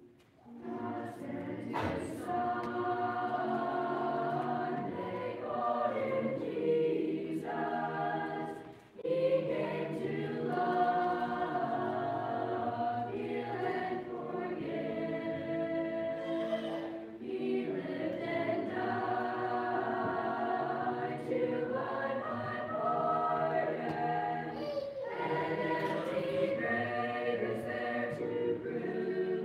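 Mixed choir of boys and girls singing unaccompanied, with a brief break between phrases about nine seconds in.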